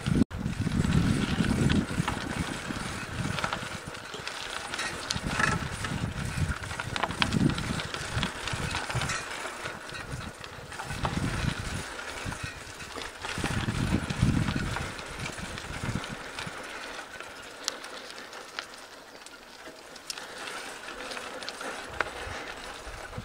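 Mountain bike riding over a dirt singletrack, with tyre noise and small rattles and clicks from the bike. Wind buffets the microphone in gusts, then dies down over the last third.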